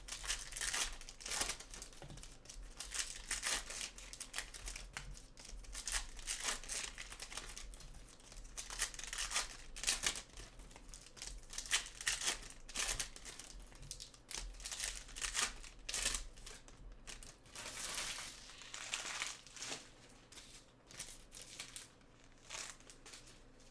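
Trading-card pack wrappers being torn open and crinkled by hand: a long run of irregular crackling rustles and tears.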